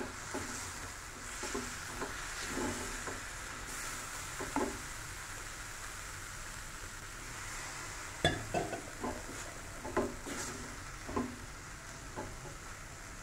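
Chopped vegetables and spices sizzling in a metal pan while a silicone spatula stirs them, scraping and knocking against the pan in short bursts: a few in the first three seconds, more from about eight seconds in.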